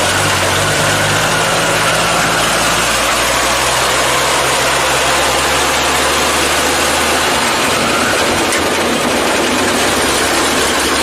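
ZIL-164 truck's six-cylinder side-valve engine running steadily, its low hum changing pitch around three and seven seconds in, under an even hiss.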